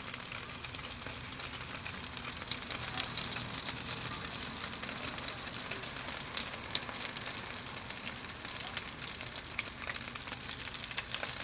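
Potstickers frying in oil in a pan: a steady sizzle with many small crackling pops.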